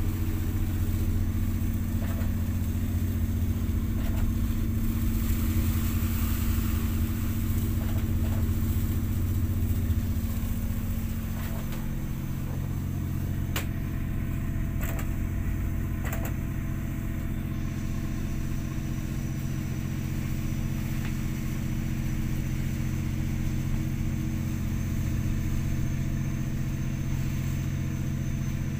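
Ship's engine running steadily, heard inside the wheelhouse as a low, even hum; the hum shifts and drops a little about ten seconds in, with a few faint clicks a few seconds later.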